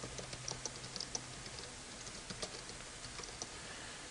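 Computer keyboard typing: a run of quick, irregular key clicks, busiest in the first second or so and more scattered after.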